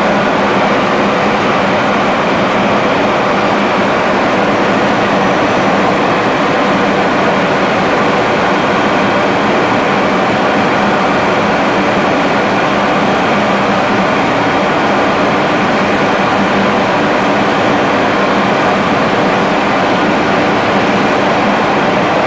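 Airliner cabin noise in flight: a steady, even rush of engine and airflow noise with a faint constant hum.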